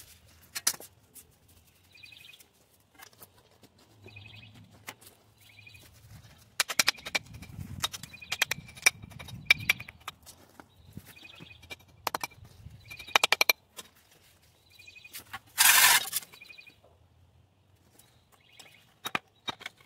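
Scattered knocks and clicks, with one loud burst of noise lasting under a second about sixteen seconds in, and short animal chirps repeating throughout.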